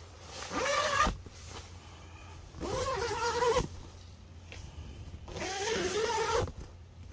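Zipper on a Gazelle T4 hub tent's mesh window being run along its track three times, each pull about a second long, with a buzzing whine that wavers in pitch. The zipper slides smoothly.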